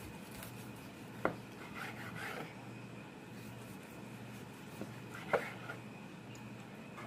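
Knife slicing through a barbecued tri-tip on a wooden cutting board, the blade scraping and rubbing against the board. There are two sharp taps, about a second in and about five seconds in.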